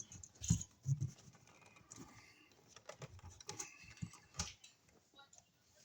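Scattered light clicks and a few dull knocks, irregularly spaced, with quiet between them.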